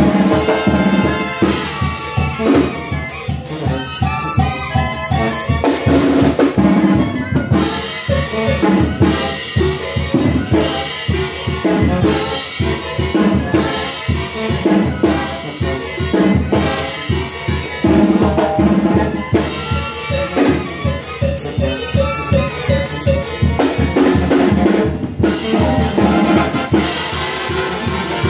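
Live brass band music: trumpets and other brass over drums, playing a dance tune with a steady beat.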